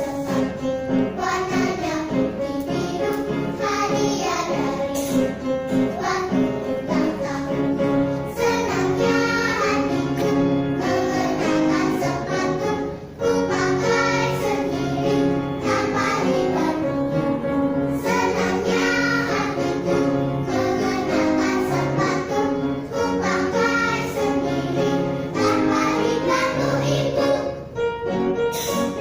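Kindergarten children's choir singing together over musical accompaniment, with a short breath between phrases about halfway through.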